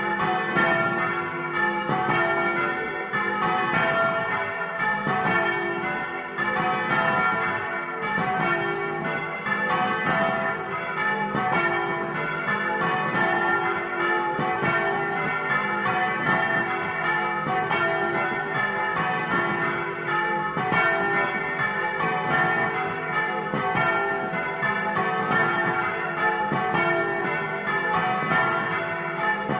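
Several large bronze church bells rung by hand and swung right over in their frame, heard close up from inside the belfry. Their strokes overlap in a dense, continuous peal of many ringing tones.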